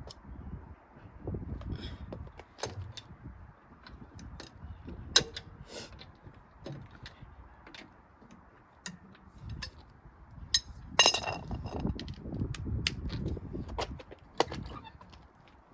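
Wind buffeting the microphone in low gusts, with scattered metallic clicks and clinks of hand tools on metal; the loudest is a clink with a short ring about eleven seconds in.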